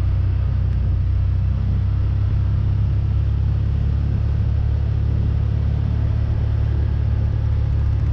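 Side-by-side UTV running at a steady speed: an even, low engine and drivetrain rumble with no change in pitch or level.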